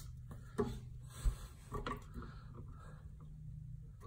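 A few light knocks and clicks of hand tools working at a golf cart's steering tie rod end while its split pin is freed, over a steady low hum.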